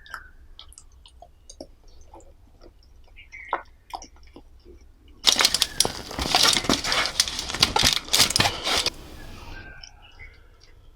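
Close-miked eating sounds: small mouth clicks and chewing, then from about five seconds in a loud, dense crackling that lasts about three and a half seconds before dropping back to soft chewing clicks.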